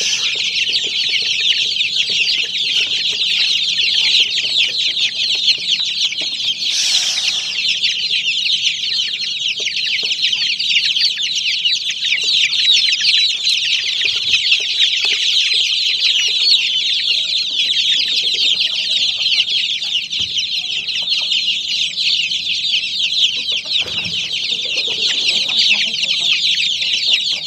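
Brood of Aseel chicks peeping nonstop: many overlapping high cheeps forming a dense, steady chorus.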